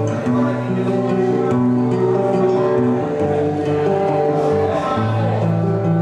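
A band playing live music: guitar with held chords, the chord changing about every second and a half.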